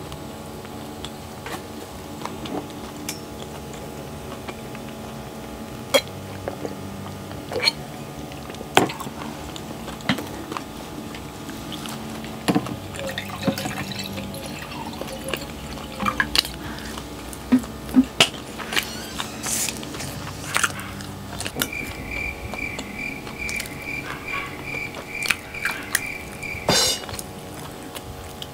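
Water poured from a plastic bottle into a glass, among scattered clicks and taps of chopsticks and eating. Near the end comes a run of quick, evenly spaced ticks lasting several seconds.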